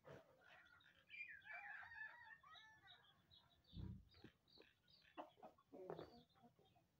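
A rooster's wavering call, about two seconds long, starting about a second in. A low thump follows, then a few short taps near the end as the bird pecks at a dish.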